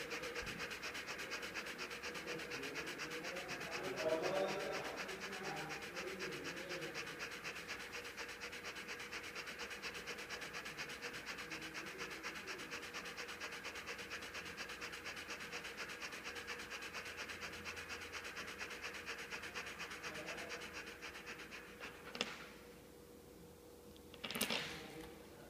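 Husky panting hard in a fast, even rhythm, with a brief louder sound about four seconds in. The panting stops a little past twenty seconds in, followed by two sharp clicks.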